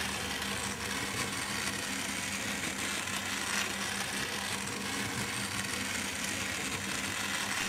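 Knockoff Thomas toy train, powered by one AA battery, running round a small plastic oval track: its tiny motor and gears whir steadily with a low hum.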